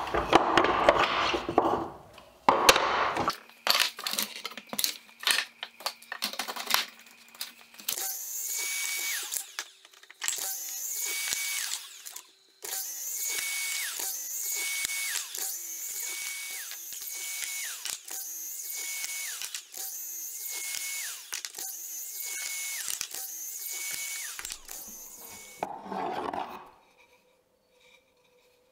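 Sliding miter saw making a quick series of cuts through thin wooden boards, one cut about every second, each with the blade's whine and the hiss of the cut. Before that, the boards clack and knock as they are stacked and handled on the bench.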